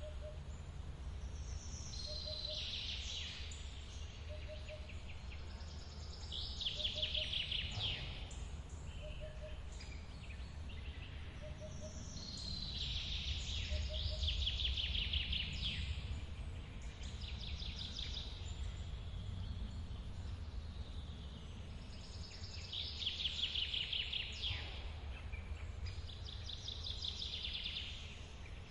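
Steady low rush of a forest waterfall, with songbirds singing short trilled phrases every few seconds. A soft low note repeats every second or two for the first ten seconds or so.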